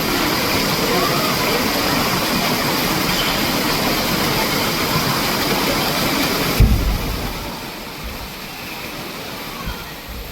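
Steady rush of falling water, a waterfall in an indoor rainforest exhibit. About two-thirds of the way through a low thump is heard and the rush drops to a lower level.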